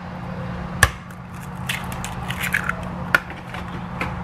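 Raw eggs being cracked into a plastic mixing bowl: two sharp taps of eggshell on the bowl's rim, about a second in and near the end, with scratchy shell crackling between them. A steady low hum runs underneath.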